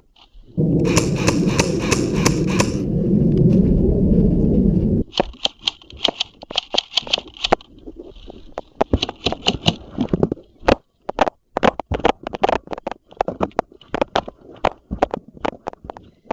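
Airsoft guns firing: rapid runs of sharp shots, several a second, and scattered single shots. A loud low rumble covers the first few seconds.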